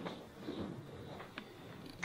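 Faint room noise in a theatre hall, with a few soft clicks, about three spread across two seconds.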